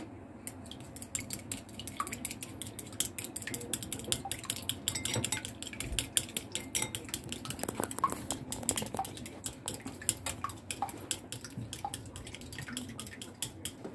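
Chopsticks beating raw eggs in a white ceramic bowl: a fast, steady run of clicks as the sticks knock against the side of the bowl.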